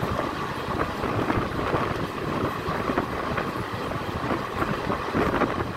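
Passenger train running, heard from on board: a steady rumble and rattle of the wheels on the track, mixed with wind noise on the microphone.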